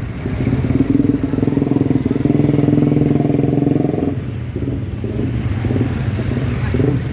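Vehicle engine running close by, a steady low pulsing note that breaks up about four seconds in.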